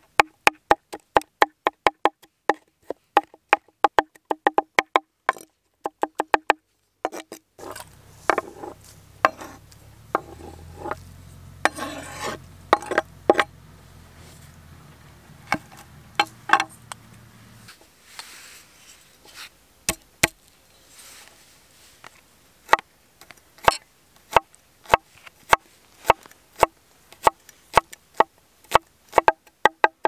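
Large knife chopping fast on a wooden cutting board, dicing tomatoes at about four strokes a second. Midway the chopping stops for about ten seconds of scraping and scattered knocks, then steady chopping resumes, slower at two or three strokes a second.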